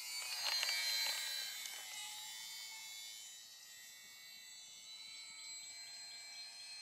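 Electric motor and propeller of a HobbyZone Sport Cub model plane whining as it passes close overhead, a high tone that is loudest about a second in and then fades as the plane flies away.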